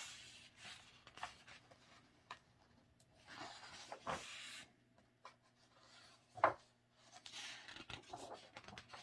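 Thick photo-book pages being turned by hand: soft paper rustling in two main sweeps, about three seconds in and again near the end, with a few light taps as the pages fall, the sharpest tap about six and a half seconds in.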